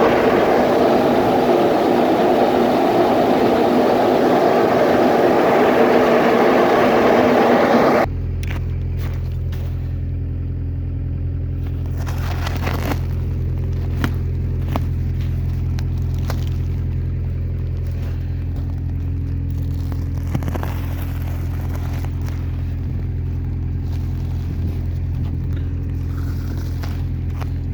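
A loud, rushing mechanical noise for about eight seconds, then an abrupt change to a farm tractor's diesel engine running steadily at a low, even pitch, with a few faint clicks and scrapes.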